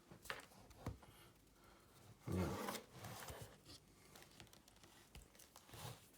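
Faint cutting and tearing of the packaging on a booster box, with a few sharp clicks and scratchy rustles.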